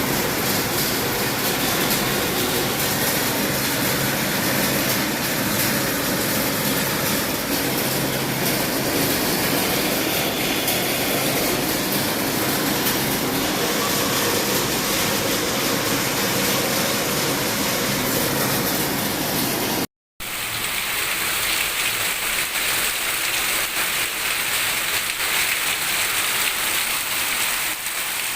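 Heavy rain and hail pouring down: a loud, dense, steady noise. It breaks off for a moment about 20 seconds in and resumes thinner and hissier.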